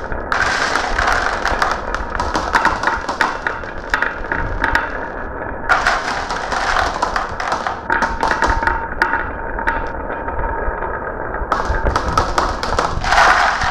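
Marbles rolling down a marble run track, with a steady rattle and many quick clicks as they knock against the track and each other. The clicking thins out for a moment after the middle and picks up again near the end.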